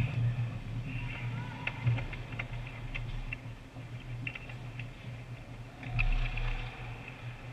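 Ice hockey play in a big, nearly empty arena: scattered sharp clicks of sticks and puck on the ice over a steady low hum, with a louder thump about six seconds in.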